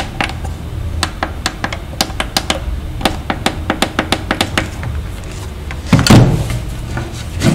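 Push buttons on a subwoofer's control panel clicked many times in quick succession, cycling the modes, then a louder thump about six seconds in. A low hum runs underneath.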